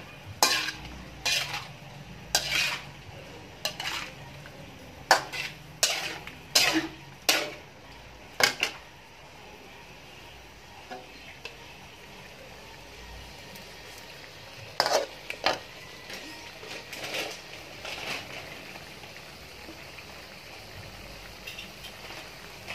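Slotted metal spatula scraping and clacking against a steel wok as squid pieces are stir-fried, over a faint steady sizzle. The strokes come quickly for the first eight or nine seconds, stop for a few seconds, then come again in a short run partway through before the sizzle is left alone.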